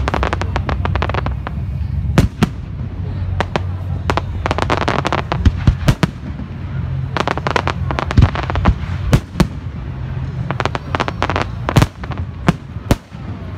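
Aerial firework shells bursting in quick succession: a run of sharp bangs at irregular spacing, several a second at times, over a steady low rumble.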